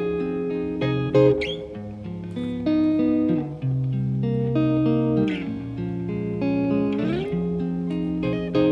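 Background music led by plucked guitar, with notes sliding up in pitch near the start and about seven seconds in.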